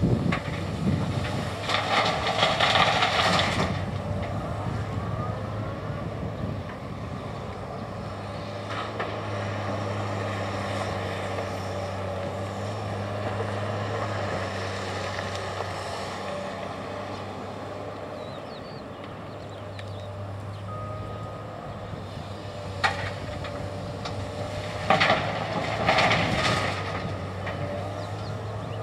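Komatsu PC240-8 excavator's six-cylinder diesel engine running steadily under work. Twice, near the start and near the end, harsher scraping and rattling noise rises over it, with a few sharp knocks.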